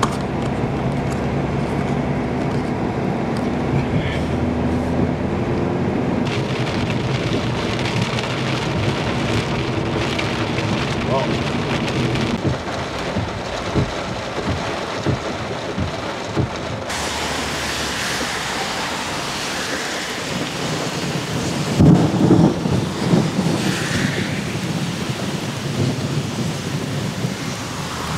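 Thunderstorm: steady rain, growing heavier about two-thirds of the way through, with a loud, uneven rumble of thunder about three-quarters of the way in.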